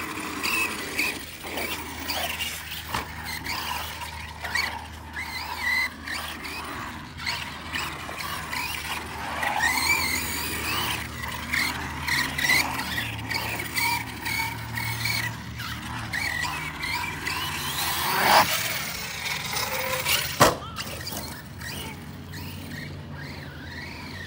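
Arrma brushless-electric RC truck driving on concrete: the motor's whine rises and falls with the throttle over the scrub and squeal of its tyres. There are two sharp knocks about two seconds apart near the end.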